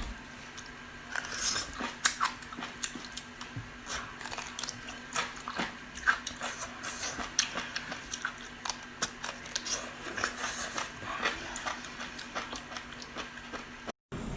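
Close-up eating sounds: wet chewing with irregular mouth smacks and clicks, over a faint steady hum.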